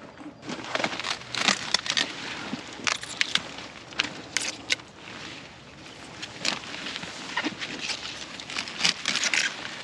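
Broccoli leaves and stalks crackling, snapping and rustling as the plants are handled and cut, a string of irregular sharp snaps.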